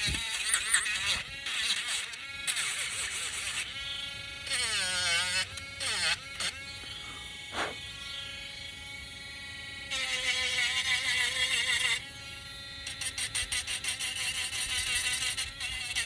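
Small electric sander running against wood, its buzz rising and falling as the piece is worked, with a song playing in the background.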